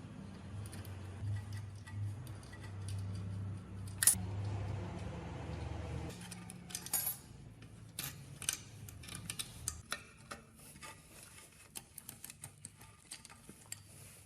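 Scattered metallic clinks and taps, like metal parts and tools being handled, with one sharp knock about four seconds in. Under them a low steady hum drops away about six seconds in.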